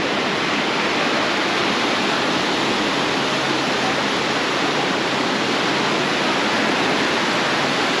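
Steady, even rush of surf breaking along a sandy beach, with no separate waves standing out.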